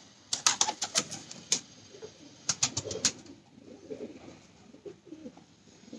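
Pigeons cooing in low, wavering tones, with two runs of sharp clicks, one about half a second in and another near three seconds, louder than the cooing.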